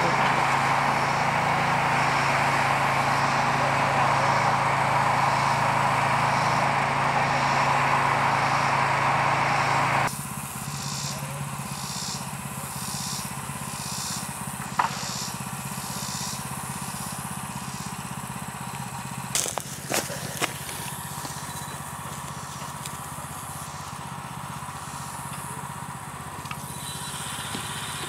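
A diesel engine, most likely the bulldozer's, running steadily as a loud drone with a low hum; about ten seconds in it cuts off abruptly to a much quieter background. In the quieter part a high chirp repeats about one and a half times a second for several seconds, and a few sharp clicks follow.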